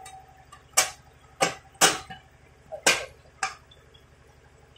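Five sharp metallic clicks and knocks over about three seconds as brass chandelier frame parts are handled and fitted together, then quiet handling for the last second.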